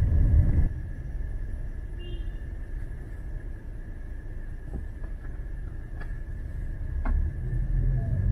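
Outdoor city street sound: a low rumble of traffic, louder for about the first half-second and then quieter, with a faint steady high tone and a few light clicks.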